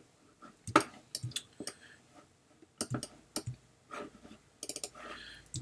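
Computer mouse clicking: a scattering of sharp single and paired clicks with short pauses between.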